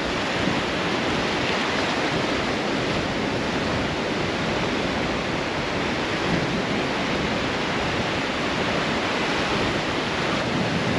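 Steady rush of sea surf breaking on a beach, an even wash of noise with no distinct events.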